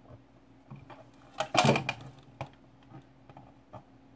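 Anime figure and its packaging being handled: a loud cluster of clicks and rattles about a second and a half in, with a few lighter knocks scattered around it.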